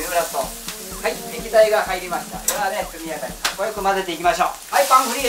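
Rice sizzling as it is stir-fried in a steel wok, a metal ladle scraping and stirring through it, with a couple of sharp metal clanks of ladle on wok.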